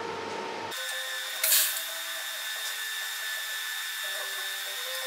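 TIG welding arc struck under a second in, with a brief louder crackle just after, then running as a steady high-pitched hiss and whine.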